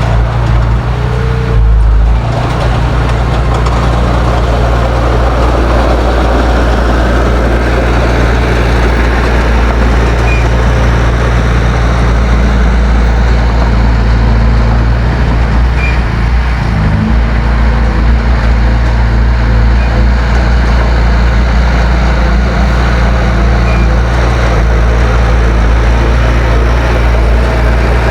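Heavy diesel engine of earthmoving machinery running steadily and loud, its note shifting briefly about two seconds in and again around seventeen seconds.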